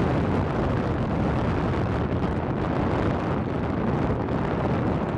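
Wind buffeting the microphone while under sail: a steady low rumbling rush with no distinct events.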